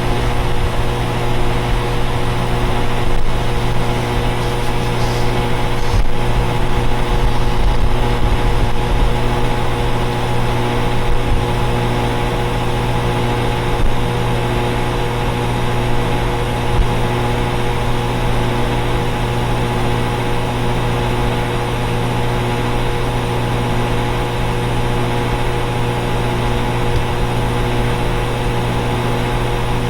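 Central air conditioner outdoor units running: a loud, steady mechanical hum with a deep drone and several steady higher tones over it.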